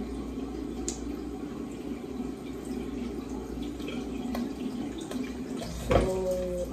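Bathroom sink tap running steadily, water splashing into the basin, with a sudden knock about six seconds in.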